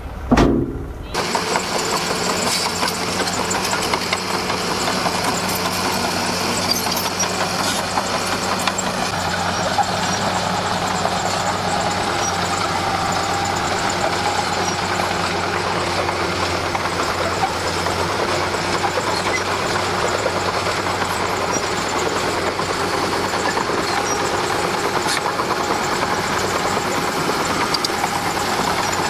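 D41P bulldozer's diesel engine running steadily at a constant pitch. A short, loud falling sound comes in the first second.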